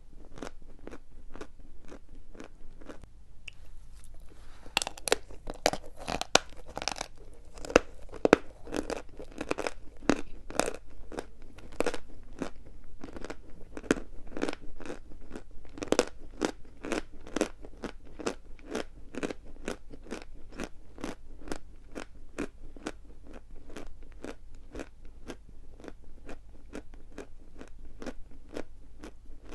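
Dry chalk being bitten and chewed close to the microphone: a steady run of crisp crunches, two to three a second.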